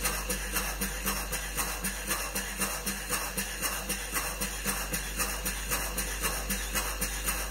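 Horizontal model steam engine with a 30 mm bore running steadily, its exhaust chuffing and its crank and valve gear clattering in an even rhythm of about three beats a second.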